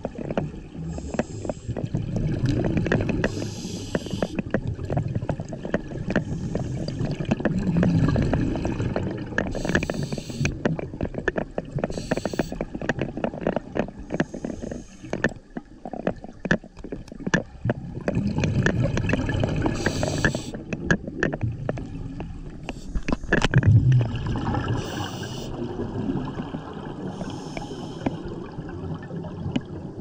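Scuba breathing heard underwater: a regulator hissing in short bursts every few seconds over a steady low rumble of gurgling exhaled bubbles, with many small clicks.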